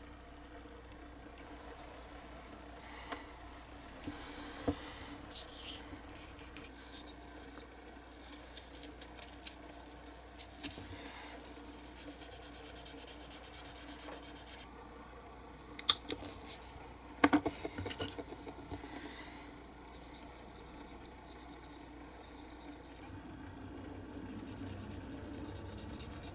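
Small hand-tool work on a small model part: rubbing and scraping with scattered light clicks, a dense scratchy run about halfway through, and two sharp clicks a little over a second apart just after it. A low steady hum sits underneath.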